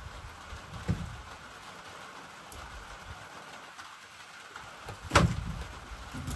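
Steady rain pattering, with a single sharp knock about five seconds in and a smaller click near the start.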